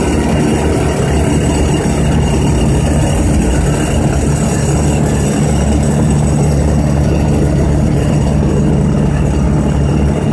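Diesel engine of a large XJ976-32D block-handling wheel loader running steadily as the machine drives under load carrying a heavy stone block.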